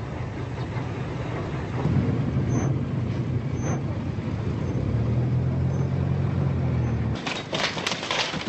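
Vehicle engines running in a steady low drone as a convoy passes. About seven seconds in, this gives way to the crackling and popping of a house fire.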